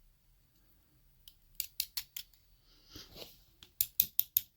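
Small metal lock parts being handled as the pins and springs are taken out of a disassembled pin-tumbler lock: a quick run of about four sharp metallic clicks, a soft rustle, then another quick run of about five clicks near the end.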